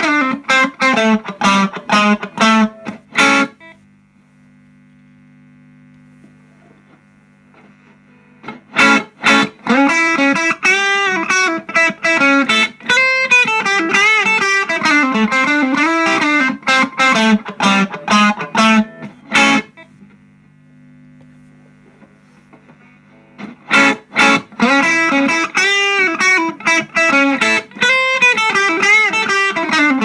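Electric guitar played through a Hermida Audio Zendrive, a Dumble-style overdrive pedal, into a small amp: overdriven single-note lines and phrases with sharp picked attacks. The playing stops twice for a few seconds, leaving only a faint steady amp hum.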